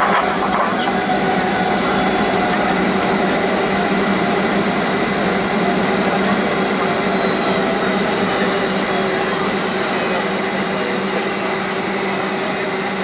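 Boeing 757 jet engines heard from inside the cabin over the wing at low thrust while the aircraft taxis and turns on the runway: a steady rushing hum with several held tones, and no spool-up.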